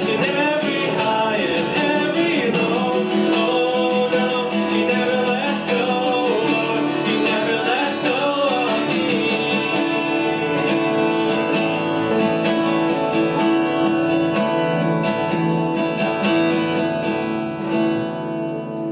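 Live worship song: a male singer with a strummed acoustic guitar. The singing fades out around the middle, leaving held guitar chords that die away near the end.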